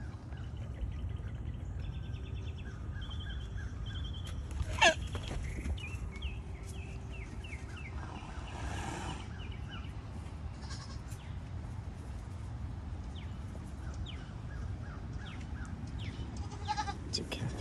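Goats bleating now and then, over a steady low rumble, with one sharp loud call about five seconds in.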